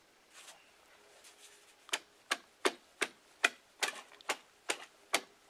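A long-handled ice chisel chopping into frozen creek ice with sharp, evenly spaced strikes, about two and a half a second, starting about two seconds in: cutting through the ice to get at an under-ice beaver trap.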